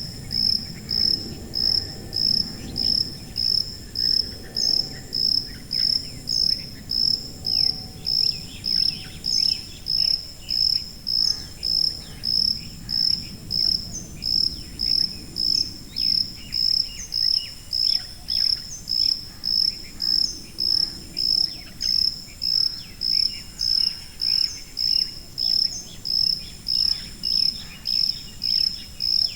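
A cricket chirping in an even, unbroken rhythm, about one and a half high-pitched chirps a second, over a faint low rumble.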